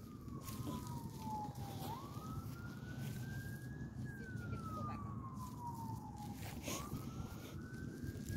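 Faint emergency-vehicle siren in a slow wail, its pitch rising for about two seconds and falling for about two and a half, going round roughly twice.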